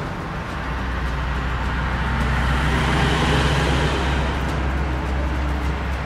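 Truck passing on a highway, its noise swelling to a peak about three seconds in and then easing off.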